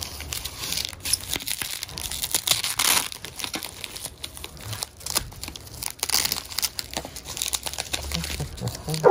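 Plastic bubble wrap crinkling and rustling as a hand works it loose to unwrap a bottle, in irregular crackles that come and go.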